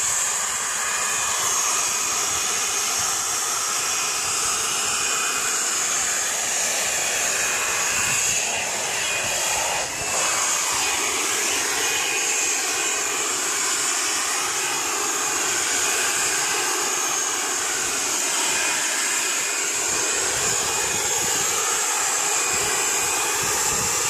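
Upright vacuum cleaner electric motor running flat out as a homemade leaf blower: a loud, steady whine and rush of air through the hose and tube nozzle, dipping briefly about ten seconds in.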